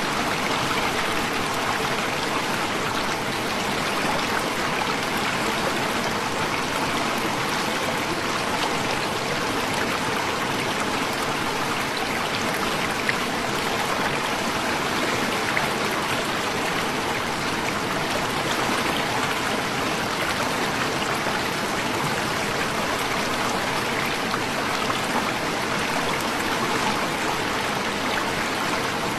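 Water of the Shoilo Propat waterfall rushing in a steady, unbroken stream.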